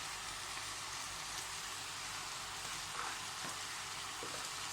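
Small pieces of meat frying in a pan, a steady sizzle, with a couple of faint light taps near the end.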